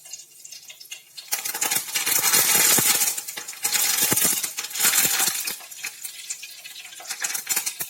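Curry leaves crackling and sizzling in hot frying oil, swelling loud about a second in and again near the middle before dying down, with a few sharp clinks of a metal utensil against the pan.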